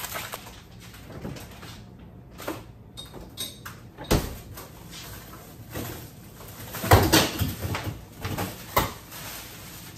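Household handling noises: a few scattered knocks and bumps, like a door or cupboard being worked. The loudest is a short cluster of knocks about seven seconds in.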